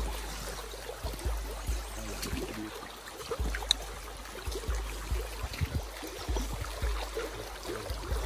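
Running stream water, an even rushing hiss, with irregular low rumbles on the microphone.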